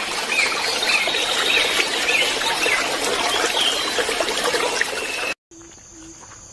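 Heavy rain falling, with a bird calling over it in short repeated notes about twice a second. About five seconds in, the sound cuts off abruptly to a much quieter background.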